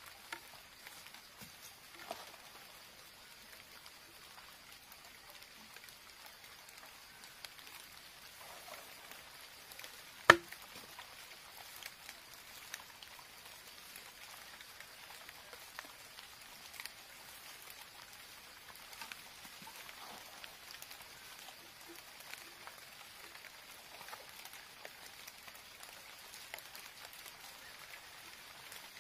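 Small scattered clicks and crackles of bamboo pieces and dry bamboo leaves being handled while a bamboo trap is fitted together, with one sharp, much louder click about ten seconds in.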